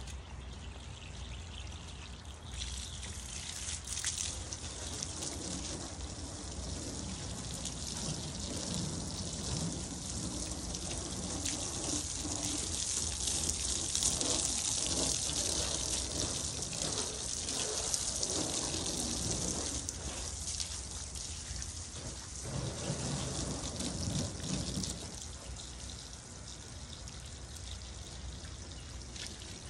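Water spraying onto a car's bodywork during a wash, a steady hiss that starts about two seconds in, is loudest in the middle and eases off near the end.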